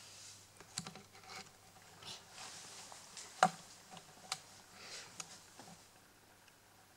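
Scattered light taps and clicks with soft rustling as several cats nose and paw at an upturned drinking glass on a wooden floor. The sharpest tap comes about three and a half seconds in.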